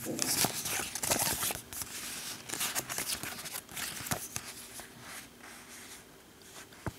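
Card and paper rustling and sliding as a getting-started booklet is drawn out of its card sleeve and opened, a run of irregular crackles and scrapes that dies down in the last couple of seconds.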